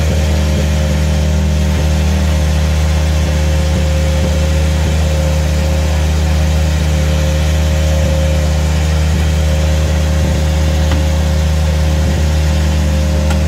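An engine idling steadily: a loud, even low hum with a steady higher tone over it, unchanging throughout.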